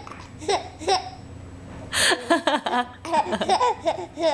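A baby laughing in short bursts, with a woman's sneeze about two seconds in that sets off a longer run of laughter.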